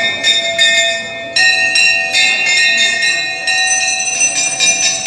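Temple bells rung by hand in quick repeated strikes, the ringing tones overlapping continuously; a second, louder bell joins about a second and a half in.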